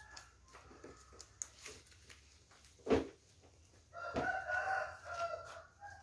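A rooster crowing off in the background: one drawn-out call starting about four seconds in, with fainter calls near the start. A single sharp knock sounds about three seconds in.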